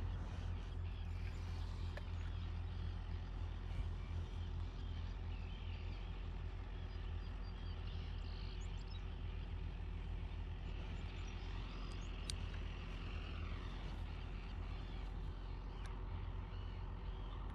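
Outdoor ambience: a steady low rumble with many small bird chirps high above it. About twelve seconds in, a fainter tone falls slowly in pitch over a couple of seconds.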